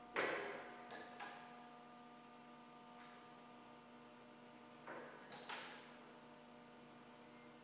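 Jungheinrich ETV325 electric reach truck with a steady electrical hum. A sharp hissing clack comes about a quarter second in, then two light clicks, and two more hissing bursts come around five seconds in.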